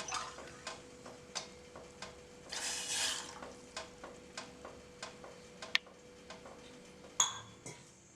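Water heating in a pan on a stove: a faint sizzle with steady ticking, about three ticks a second, and a brief louder hiss about two and a half seconds in.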